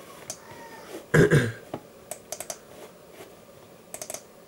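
Computer mouse clicks and keyboard taps in short quick runs of three or four, with a louder brief double noise about a second in.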